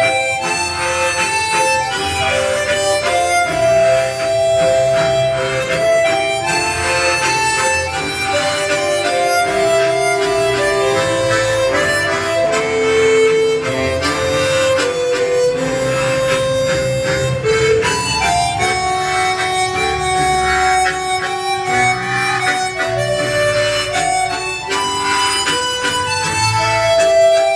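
Harmonica ensemble playing a slow melody in held notes over other harmonica parts and a pulsing low accompaniment.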